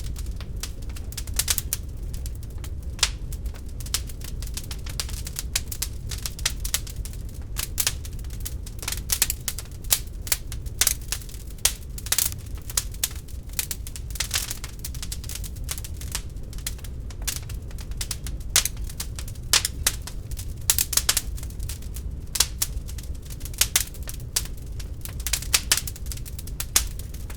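Wood fire burning in a fireplace: irregular sharp crackles and pops over a steady low rumble of the flames.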